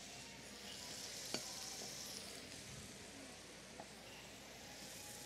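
Asparagus and onion sizzling faintly in a pan on the stove, a steady frying hiss, with two light clicks about a second in and near the end.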